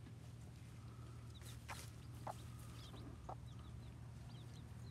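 White Leghorn hen and her newly hatched chicks: scattered short, high peeps from the chicks, with a couple of low clucks from the hen about two and three seconds in.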